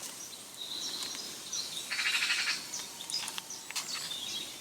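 Small birds chirping and singing, with a rapid trill about two seconds in, over faint outdoor background noise.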